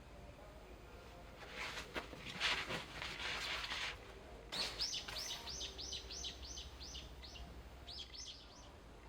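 A small bird singing a run of about a dozen quick, repeated chirps, roughly four a second, with a shorter run near the end. Before it comes a couple of seconds of rustling hiss with a few clicks.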